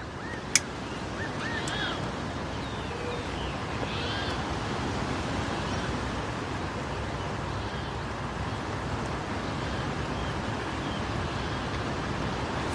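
Steady outdoor wilderness ambience, a wind-like hiss, with a few short bird calls scattered through it. A single sharp click sounds about half a second in.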